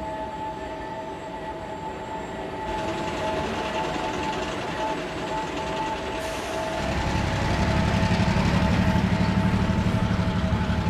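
Railway scrapyard ambience sound effect with a steady hum and a hiss from about three seconds in. About seven seconds in, a louder, low rhythmic train rumble builds up.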